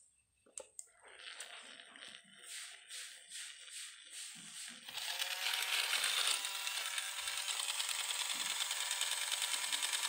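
Battery-powered toy sewing machine switched on about five seconds in and running steadily, its small motor and needle mechanism making a fast, even clatter. Before that, a few clicks and a fainter uneven rattling from the plastic toys.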